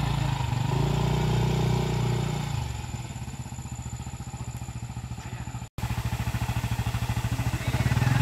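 Motorcycle engine running with the throttle held up for the first couple of seconds, then dropping to an idle with distinct firing pulses. The sound breaks off for an instant about two-thirds of the way through, and the engine picks up again near the end.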